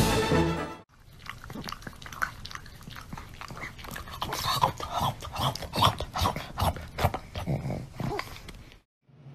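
A pug making a run of short, irregular vocal sounds close to the microphone, grunts and brief whiny notes, loudest in the middle and stopping abruptly near the end. Music cuts off about a second in, before the pug is heard.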